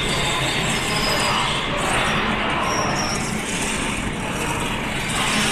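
Keio Liner commuter train at the platform: steady rumbling train noise with a low hum, without distinct events.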